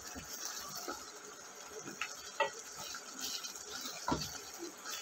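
Wooden spatula stirring a thick masala gravy in a stainless steel pot, with a few light knocks and scrapes against the pot. Under it the gravy sizzles and bubbles steadily as it is cooked down to a dry consistency.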